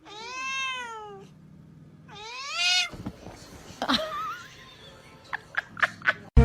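A cat meowing: two long drawn-out meows that rise and then fall in pitch, followed by a shorter call. A few light clicks come near the end.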